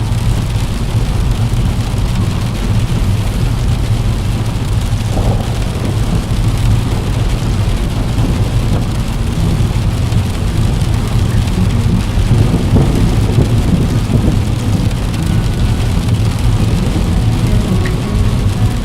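Steady heavy rain pattering on a window pane, with deep rolling thunder rumbling under it.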